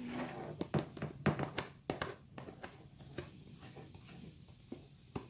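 Irregular clicks and taps of a utensil and bowl while foam beads and glue are mixed for slime. The taps are thickest in the first two seconds, then come sparser.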